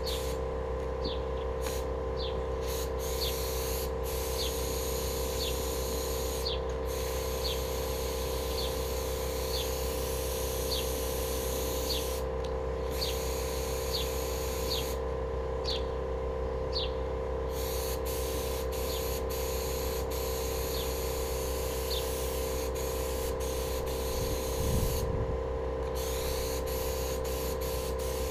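HVLP paint spray gun spraying, a steady hiss of air and atomised paint that stops briefly a few times, over a steady hum.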